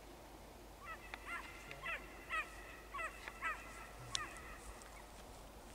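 Wild birds calling: a run of about eight short, hooked calls in quick, uneven succession over about three seconds.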